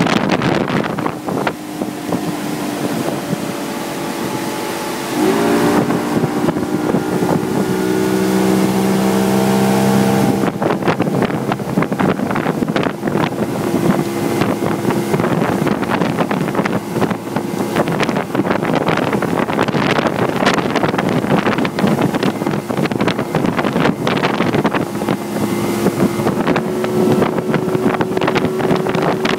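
Johnson 150 outboard motor running at planing speed, its engine note stepping up in pitch about five seconds in and rising slightly again near the end. Wind on the microphone and rushing water are mixed in, with many short knocks in the second half.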